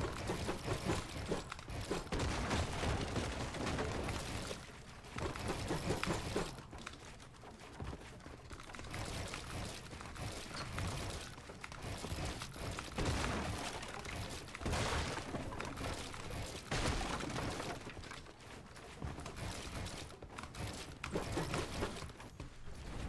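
Shooter video game sound effects: dense volleys of gunfire and crashing, shattering impacts that come and go in busy stretches.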